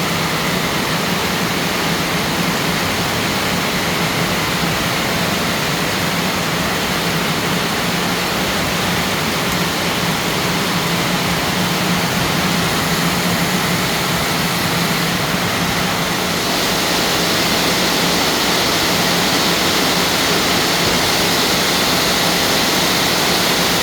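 Heavy rain pouring down in a steady hiss, growing a little louder about two-thirds of the way through.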